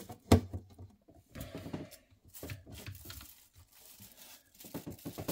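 Plastic panels of a model shipping-container display case being handled and fitted together: a sharp click about a third of a second in, then light knocks and scraping as the parts are moved and seated.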